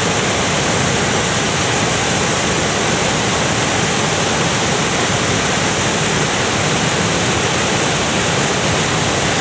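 Steady rush of a large waterfall, its water churning where it crashes down into the gorge below.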